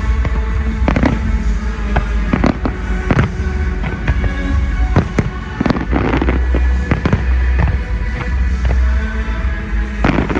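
Fireworks going off in quick succession, a dozen or so sharp bangs with a dense crackle about six seconds in, over music with a heavy bass line.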